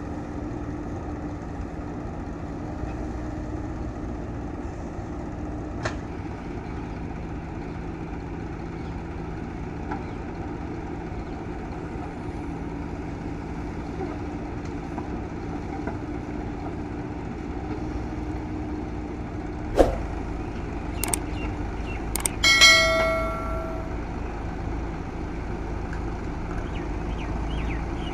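JCB 3DX backhoe loader's diesel engine running steadily, with a few sharp knocks, the loudest about two-thirds of the way in. Shortly after that comes a tone with several pitches that lasts about a second and a half.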